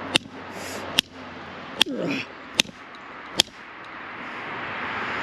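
Channel-lock pliers striking a soldered copper pipe fitting: five sharp metallic blows, a little under a second apart, in a test to crack the solder joint. A steady rushing noise swells after the last blow.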